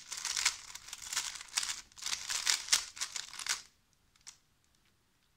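GAN 3x3 speed cube being turned rapidly by hand, its plastic layers clicking and rattling in quick runs of turns as the scramble is applied. The turning stops a little past halfway, leaving only a few faint ticks.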